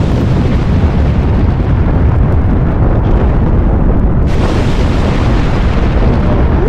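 Loud, steady low rumble of rushing, swirling wind, a tornado-like roar, growing brighter and hissier about four seconds in.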